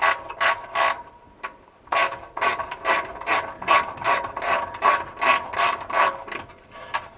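Ratchet wrench clicking in quick back-and-forth strokes, about three clicks a second, while backing out a 10 mm exhaust mounting bolt. There is a short pause about a second in.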